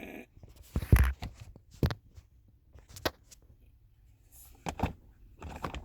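Handling noise: a few separate knocks and clicks, the loudest about a second in, with light rustling between them, as an object is set down and shifted into place.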